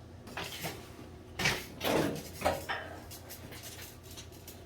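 Knocks and clattering of things being handled, about five sharp ones in the first three seconds, then a few lighter ticks.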